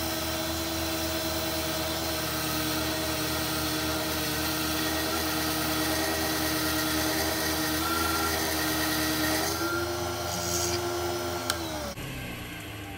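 Mini wood lathe running at steady speed while a cutter held in a cross-slide vise shaves the spinning blank, a whine over a cutting hiss. Near the end there is a sharp click, then the lathe winds down, its whine falling in pitch and fading.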